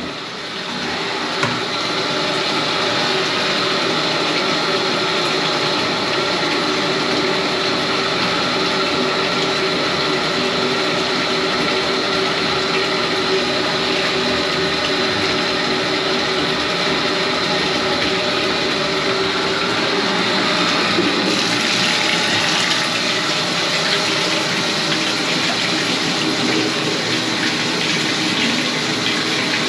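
Water running steadily through a toilet, a continuous rushing hiss like the tank filling. It turns brighter and hissier about two-thirds of the way through.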